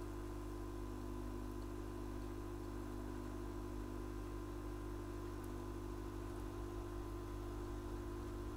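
Steady electrical hum with a few fixed tones and faint hiss, unchanging throughout, with no other event.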